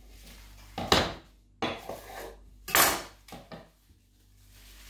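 Cling film rustling and crinkling as it is wrapped around a piece of smoked salmon, in four or so short bursts, the loudest about a second in and near three seconds.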